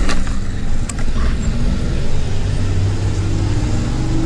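Motorcycle engine running under wet-road and wind noise, with a sharp knock about a second in and a steady engine hum over the last couple of seconds.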